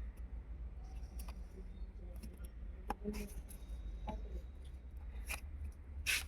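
Sharp plastic clicks and scrapes as a cap is pushed and worked into the air filter box opening of a Bajaj Pulsar, the loudest click near the end, over a steady low rumble.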